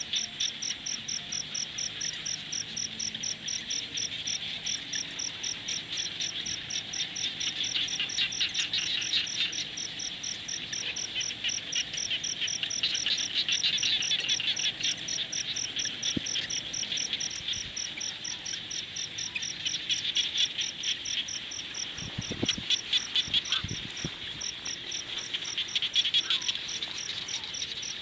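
Chorus of crickets chirping in a steady, rapid, high-pitched pulse, with a lower trilling chorus swelling and fading beneath it several times.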